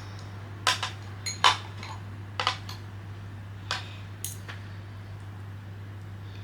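Chopsticks clicking and knocking against dishware, about seven sharp taps in the first four and a half seconds, as food is picked at and slips from their grip. A steady low hum sits under them.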